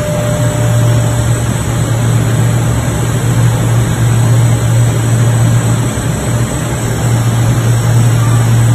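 Plastic welding rod extrusion machine running with a steady, loud low hum over a constant mechanical noise.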